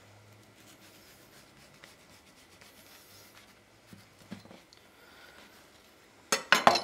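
Kitchen knife cutting around the inside of a halved, slightly stale white loaf to free the crumb: faint scratching of the blade through the bread, a couple of small clicks, then a short loud crackle of crust and crumb near the end.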